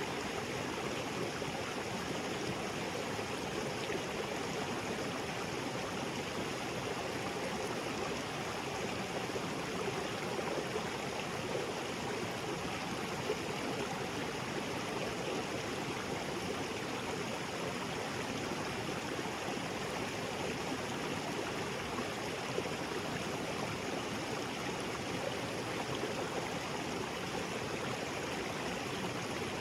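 Small waterfall splashing into a rocky jungle creek: steady, even rush and gurgle of falling and flowing water.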